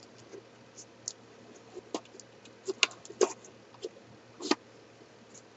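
Cardboard jigsaw puzzle box being opened and handled after its sealing tape is broken: a few scattered, sharp clicks and scrapes of cardboard.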